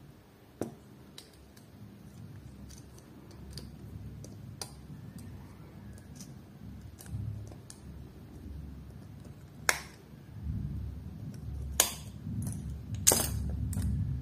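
Sharp plastic clicks and snaps as a Bluetooth neckband earphone's plastic housing is pried open with a thin metal pick, over low rubbing and handling noise. The loudest snaps come in the last few seconds as the casing comes apart.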